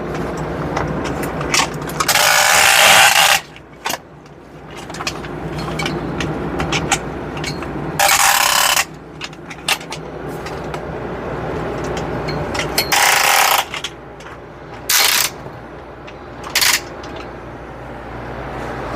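Rope ratchet hangers being pulled to raise a grow light, in five short ratcheting bursts with smaller clicks between them. A steady low hum runs underneath.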